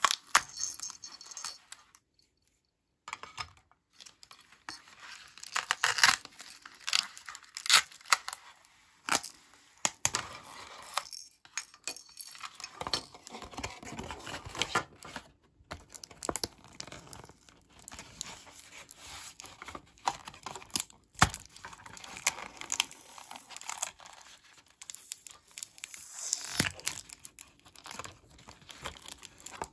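Plastic wrapping and printed paper packaging crinkling and tearing as small toy pieces are unwrapped by hand, with scattered clicks of hard plastic parts being handled.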